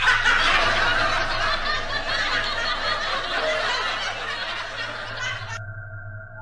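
A burst of laughter and shrieking voices that starts suddenly, slowly fades, and cuts off abruptly about five and a half seconds in. It gives way to a steady electronic tone.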